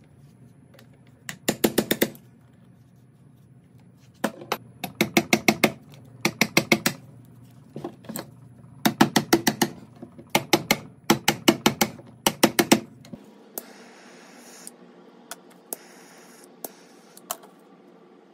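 Bursts of rapid sharp clicks or taps, several in quick succession each time, from hand-tool work on a car starter motor. After about thirteen seconds the background changes and only a few scattered clicks follow.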